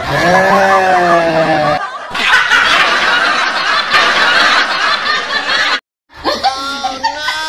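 A man and a woman laughing loudly, with a sudden cut to silence about six seconds in before the laughter resumes.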